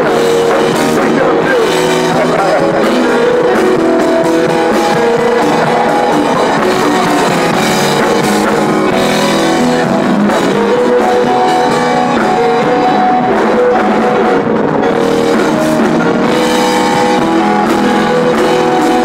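Live band playing loud, steady music, with electric guitar and keyboard over a drum kit.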